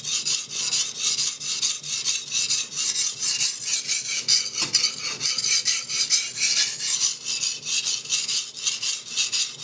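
Carbon-steel cleaver blade stroked back and forth on a wet 320-grit Nubatama Bamboo Japanese waterstone. The strokes are gritty and scraping, mostly high-pitched, in a quick even rhythm of several a second.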